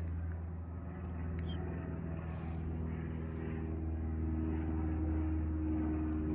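Steady low hum of an idling engine, even in pitch throughout.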